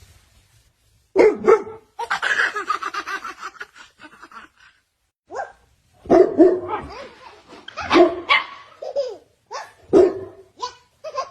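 A dog barking in short bursts, mixed with a baby laughing.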